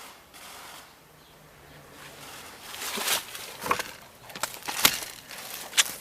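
Footsteps and rustling through undergrowth: quiet at first, then from about halfway an irregular run of crunches with a few sharper clicks.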